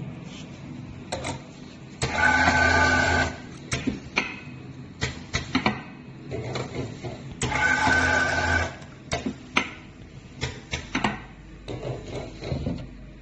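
Four-head magnetic drive pump filling machine running its fill cycle: the pumps whir steadily for about a second, twice, some five seconds apart, with clicks and clinks of the bottle stops and glass bottles in between.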